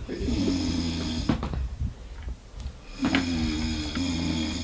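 A sleeping man snoring: two long snores, the second beginning about three seconds in.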